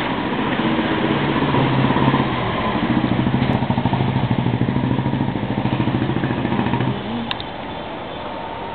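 A small vehicle engine running steadily close by with a fast pulsing beat, which drops away about seven seconds in, over general street noise.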